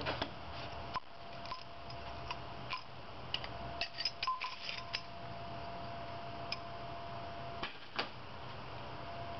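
Scattered light metallic clicks and clinks of small brass and steel burner parts being handled and fitted together by hand, with a cluster about four seconds in and two more near the end, over a steady faint hum.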